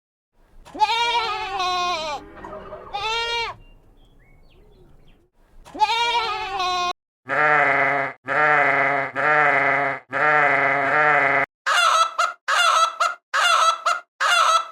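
Farm animal calls in several separate bursts: wavering, bleat-like calls with a pause between them, a run of four long repeated calls, then five short, higher-pitched calls in quick succession near the end.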